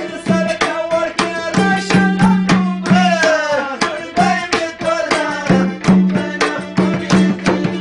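Live-sounding music: a hand drum beats a quick, steady rhythm, its low strokes ringing, under a melody that slides up and down in pitch.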